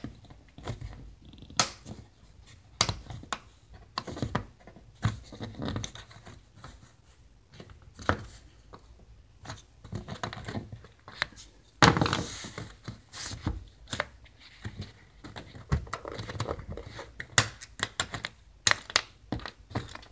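Thin metal pry tool working a plastic push-pin retainer clip out of a van's rear trim panel: irregular clicks and short scrapes of metal on plastic, with a longer, louder scrape about twelve seconds in.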